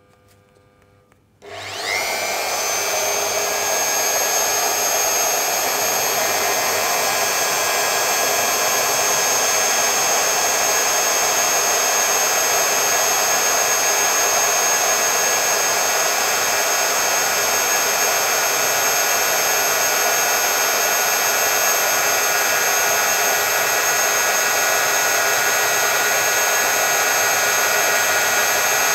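Metabo Mag 50 magnetic core drill switched on about a second and a half in, its motor spinning up quickly and then running steadily with a high whine while its broach cutter bores into a steel column.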